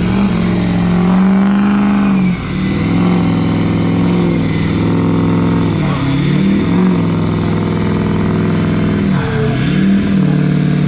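Ford Super Duty diesel pickup's engine revving hard and held at high revs while the rear wheels spin in the sand, with short dips and pickups about 2, 6, 7 and 9 seconds in.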